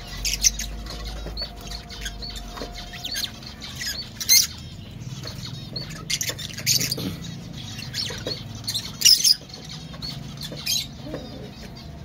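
Fischer's lovebirds calling with sharp, high-pitched chirps in short bursts, several times over, the loudest about four and nine seconds in.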